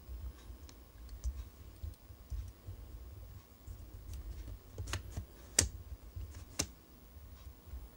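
A few faint ticks, then three sharp clicks spaced about a second apart a little past the middle, the second the loudest, over a low rumble.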